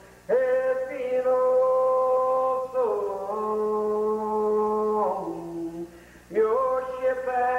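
A man singing a gospel song unaccompanied, in slow, drawn-out notes: each syllable is held for two seconds or more and slides down into the next. He breathes briefly just before the first note and again about six seconds in.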